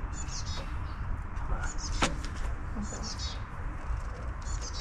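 Hydraulic floor jack being pumped by hand under a car's front end, a short high squeak with each stroke about every second and a half, and one sharp click about two seconds in.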